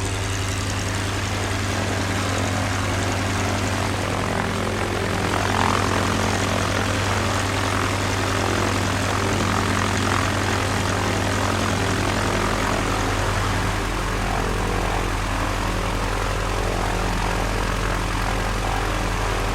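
Single-engine propeller airplane engine running steadily, a low droning hum with a slight swell about five or six seconds in.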